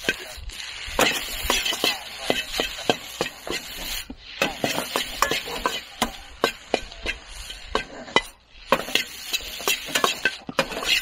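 Spatula scraping and clanking against a wok as fried rice is stir-fried over a wood fire, many quick strikes over a steady sizzle, with brief lulls about four and eight seconds in.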